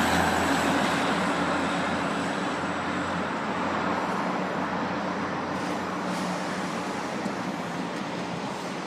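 A car driving past on the parking garage deck, a steady rush of engine and tyre noise that is loudest at first and slowly fades as it moves away.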